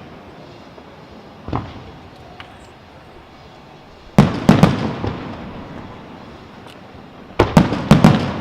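Aerial fireworks shells bursting: one report about a second and a half in, then two quick volleys of about four sharp bangs each, near the middle and near the end, each volley trailing off in a fading echo.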